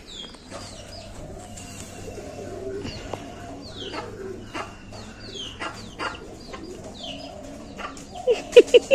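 Birds calling outdoors: many short, downward-sliding chirps repeat throughout. Near the end, four loud, short, low calls follow quickly one after another.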